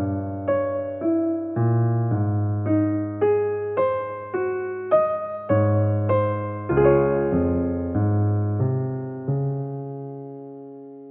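Slow, gentle solo piano music: notes and chords struck about twice a second, ending on a held chord that slowly fades away.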